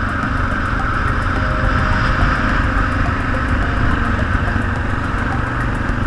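Motorcycle engine running steadily while cruising, with wind rushing over the helmet-mounted microphone.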